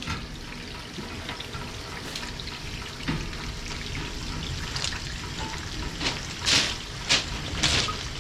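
Steady rain falling, with several short hissing bursts in the second half.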